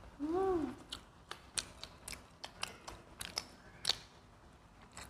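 People chewing pizza with open-mouthed, crisp crunching clicks scattered throughout. About a quarter of a second in, a short hummed "mm" rises and falls in pitch, the loudest sound.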